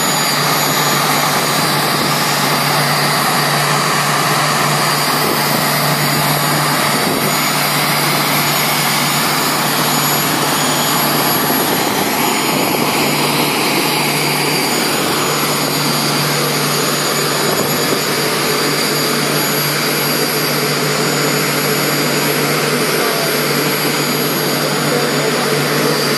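Aérospatiale SA341G Gazelle helicopter's Turbomeca Astazou turboshaft running on the ground with rotors turning, a steady turbine whine over an even rush, held at a constant pitch while it waits to take off.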